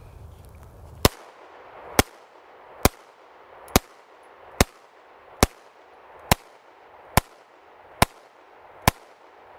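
Ten 9mm pistol shots from a Kriss Sphinx SDP, fired one at a time at a steady pace of a little more than one a second.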